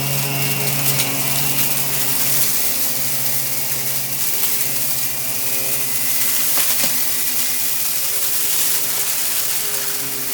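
Central vacuum running through an EBK 360 electric power nozzle, its motor humming steadily over the rush of suction air, picking up a crunchy mess with scattered small clicks of debris.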